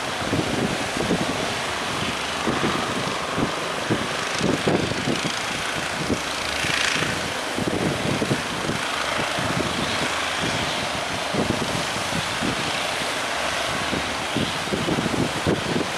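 Strong wind buffeting the microphone in irregular low thumps over a steady rush of surf, with a louder surge about seven seconds in.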